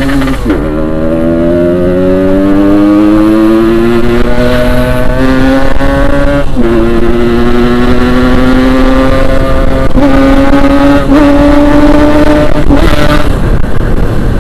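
Yamaha RX-King 135cc two-stroke single-cylinder engine accelerating hard through the gears, its pitch climbing slowly in each gear and dropping at upshifts about half a second, six and a half seconds and ten seconds in.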